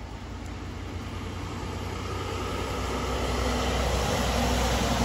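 Coal truck approaching, its diesel engine and tyres making a low rumble that grows steadily louder as it comes closer.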